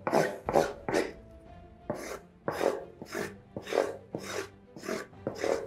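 Rubber hockey puck rubbed back and forth over the tape on a hockey stick blade: a series of short rasping strokes, about two to three a second, with a brief pause about a second in. The rubbing presses and smooths the tape so that it holds better on the blade.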